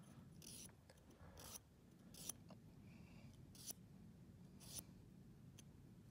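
Glass nail file rasping across a dog's claw in about six short, faint strokes, roughly one a second, rounding off the sharp edges left by the clippers.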